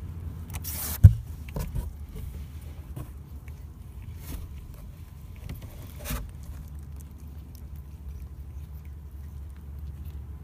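Young kittens shuffling about, with soft scrapes and taps and a sharp knock about a second in, over a low steady rumble.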